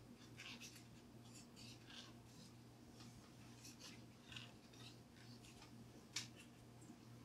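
Faint small clicks and scratches of hands handling thin soldered wires, with one sharper click about six seconds in, fitting the snip of cutters trimming excess wire. A steady low hum runs underneath.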